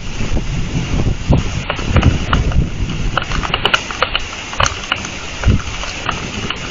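Thunderstorm wind buffeting an outdoor camera microphone, a steady low rumble, with raindrops tapping sharply on the mic and nearby surfaces several times a second.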